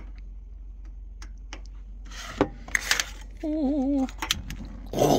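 Clicks and knocks from turning on and lighting the burner of a camper's gas range, with a brief wavering tone midway. A short rush of noise near the end as the gas catches.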